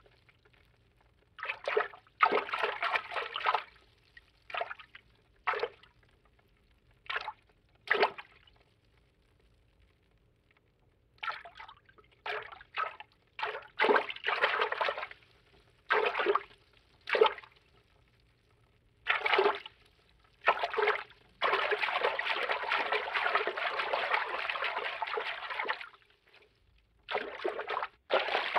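Cartoon water-movement foley: a string of short bursts of moving water with quiet gaps between them, then one longer stretch of about four seconds past the middle.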